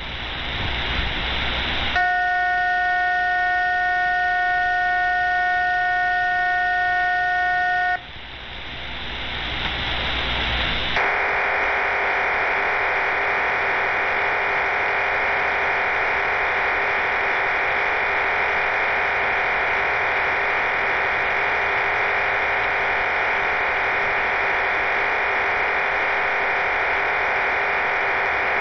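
Shortwave numbers station HM01 received on a software-defined radio, sending its digital data mode: after about two seconds of hiss, a chord of several steady tones is held for about six seconds, then about three seconds of hiss, and from about eleven seconds a dense, even multi-tone data signal with a buzzing hiss runs steadily on.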